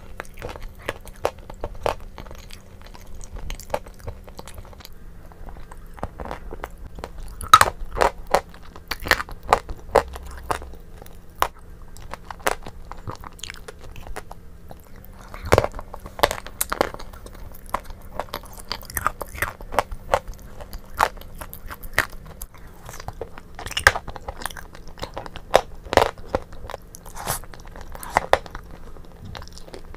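Close-miked mouth sounds of eating a thick white cream dessert: wet, sticky chewing and crunching with irregular sharp clicks, several a second.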